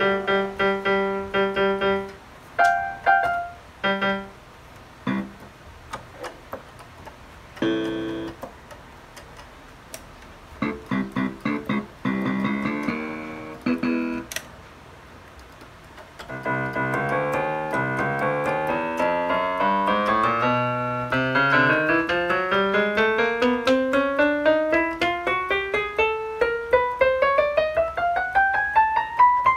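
Casio CTK-240 portable keyboard playing a piano-like tone. Scattered chords and short phrases come with pauses between them. About halfway in it becomes a fast run of notes that climbs steadily in pitch in a long rising scale and stops near the end.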